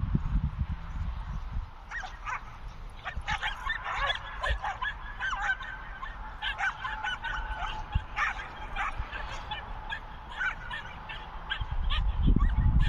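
A flock of birds calling: many short overlapping calls, busiest in the middle. A low rumble at the start and again near the end.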